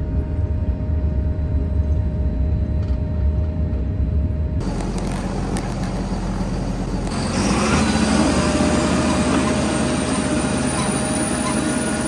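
Tractor engine drone heard from inside the cab, cutting at about four and a half seconds to a Grimme self-propelled potato harvester working close up. Its running machinery and the webs carrying soil and potatoes make a steady noise that grows louder from about seven seconds.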